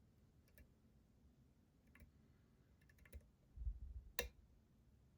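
Faint, sparse clicks of a lock pick working the pins of a challenge lock under tension, with a louder click about four seconds in, just after a brief low handling bump.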